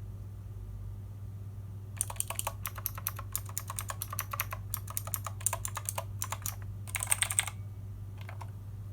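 Redragon mechanical keyboard with Outemu Blue clicky switches being typed on: runs of sharp audible clicks, every key sounding alike, starting about two seconds in, with a dense flurry near the end. A steady low hum sits underneath.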